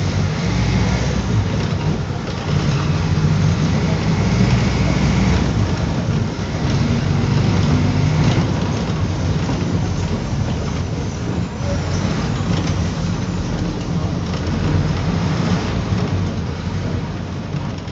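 A bus engine running steadily, a low drone under a constant hiss of road noise.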